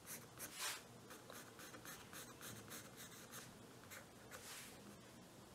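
Faint, quick scratching of a 2B graphite pencil on drawing paper: light, repeated strokes as the tulip petals are sketched in, a few strokes slightly louder than the rest.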